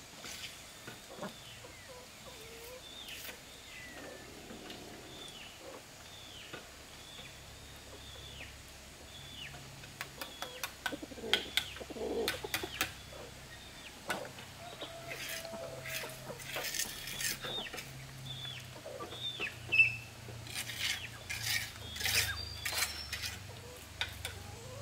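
A bird repeating a short, high, falling chirp about once a second, joined from about ten seconds in by clusters of sharp clicks, knocks and scrapes of hand work, and a chicken clucking.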